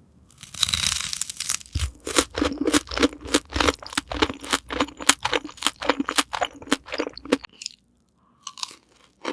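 A crunchy bite into crispy fried chicken coated in sauce, then steady crunchy chewing, about two or three crunches a second, which stops a couple of seconds before the end.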